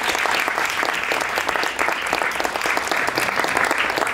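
Audience applauding, a dense, steady stream of hand claps.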